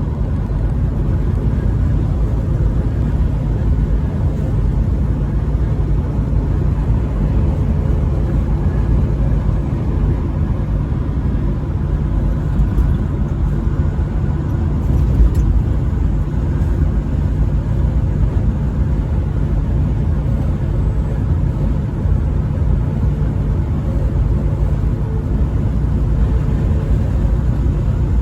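Steady low rumble of engine and road noise from a truck driving at highway speed.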